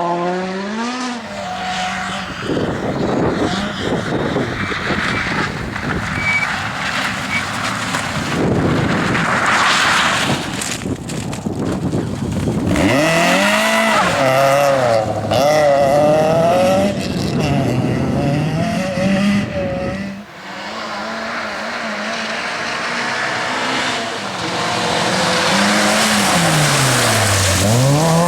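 Rally car engines at full throttle, their pitch climbing and dropping again and again through gear changes and lifts off the throttle, with tyre noise underneath.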